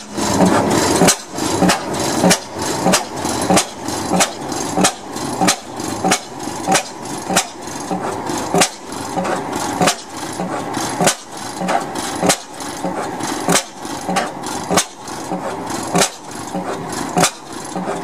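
Hot-bulb ignition oil field engine running slowly, each firing a sharp exhaust crack, about two a second and a little uneven.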